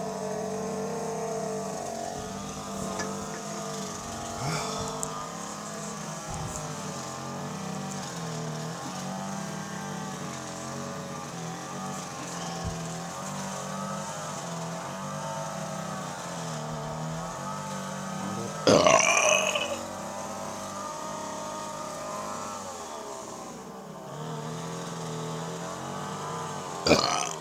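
A man burping: one long, loud burp about two-thirds of the way in and a short one near the end. A steady motor drone runs underneath.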